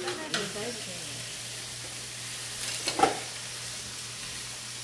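Duck broth with neungi mushrooms hissing steadily in a pan on a portable gas stove. A couple of light clicks come at the start, and a utensil knocks against the pan about three seconds in.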